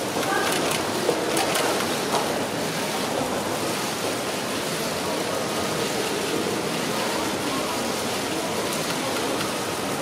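Steady din of a crowd in a large indoor hall, with a few camera shutter clicks in the first two seconds.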